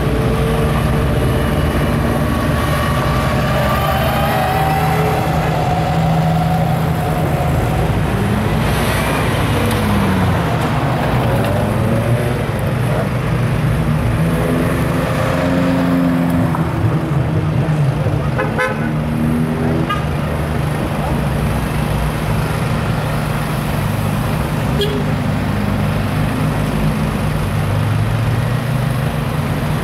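A procession of cars driving slowly past one after another, engines running with a steady low hum. Held pitched tones sound partway through, and one pitch glides near the middle.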